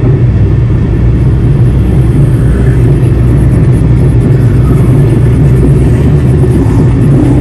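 Steady low rumble of a car travelling at highway speed, heard from inside the car: engine, tyre and wind noise with no sudden changes.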